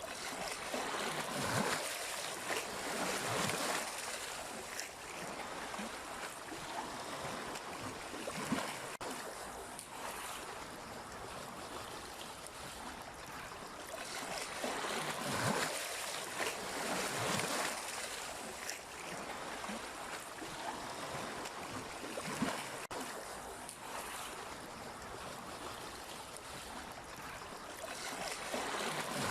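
Sea waves washing onto the shore: a steady rush of surf that swells and falls back every few seconds.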